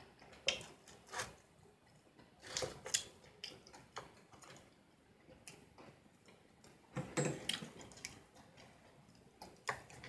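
Disposable chopsticks clicking and tapping as they pick through fried food on a takeout tray: faint, irregular sharp clicks, with a slightly fuller cluster about seven seconds in.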